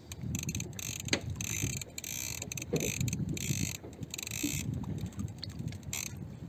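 Fishing reel being worked while a large fish is brought up to the boat on light tackle: a dense, irregular mechanical ticking from the reel's gears, over a low rumble.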